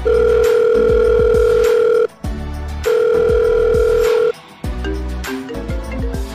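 Two long, steady telephone-style beeps, each about two seconds with a short gap between, over background music. Short melodic notes follow near the end.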